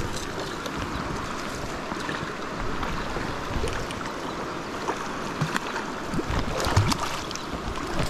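Small stream in high flow rushing steadily over its bed, with a few short splashes and knocks about five to seven seconds in.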